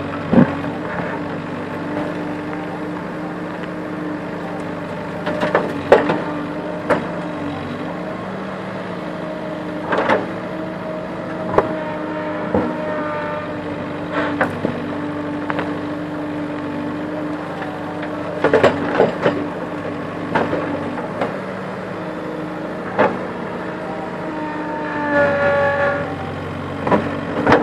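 JCB backhoe loader's diesel engine running steadily while it digs, with scattered sharp clanks and knocks as the backhoe bucket strikes and scrapes rocks. A few brief higher whines come through around the middle and again near the end.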